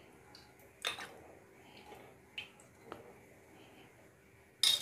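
A few faint clicks and taps of a metal ladle against the oil jar and the metal pressure cooker as spoonfuls of cooking oil are put into the pot, with a sharper knock near the end.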